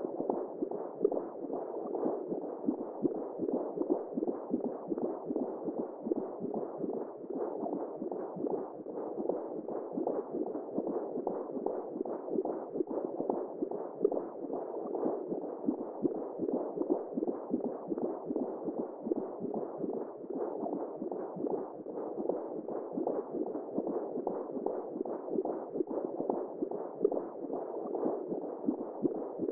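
Simulated womb sound for lulling a baby: a steady, muffled whooshing noise with nothing bright in it, flickering quickly in level.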